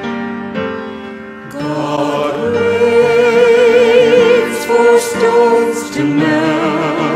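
Music: a hymn verse sung with vibrato over sustained instrumental accompaniment. The voice comes in about a second and a half in, after a short stretch of held chords.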